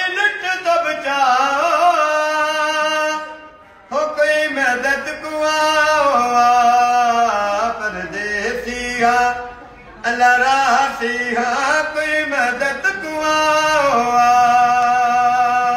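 A man's unaccompanied voice singing a noha, a Shia lament for Husayn, in long drawn-out phrases that bend in pitch, with short breaks for breath between them.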